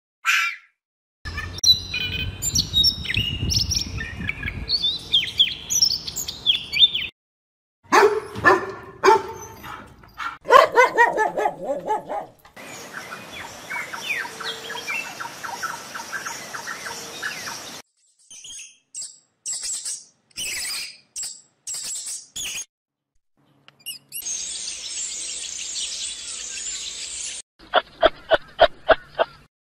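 A string of short animal sound clips cut one after another with brief gaps, mostly birds chirping and calling. Near the end comes a rapid run of evenly spaced pulsing calls.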